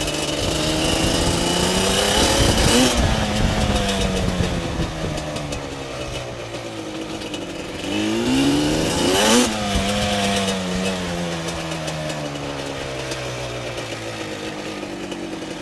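An engine that climbs steeply in pitch to a peak twice, about three and nine seconds in, each time falling slowly away again.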